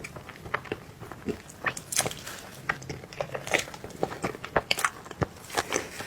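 A person chewing and biting soft cake close to the microphone: a run of short, irregular mouth clicks, several a second.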